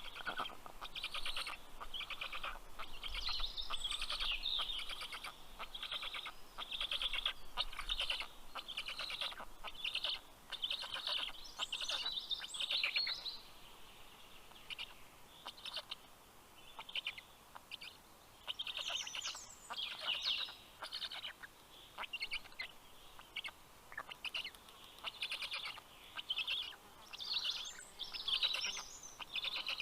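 Birds calling in rapid chattering trills, some with quick high rising notes. The calls come thick and fast at first, then in shorter bouts with pauses between them.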